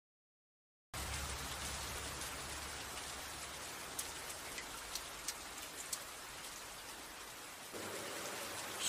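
Rain pouring steadily. It cuts in suddenly about a second in after dead silence, with a few sharper drops clicking now and then.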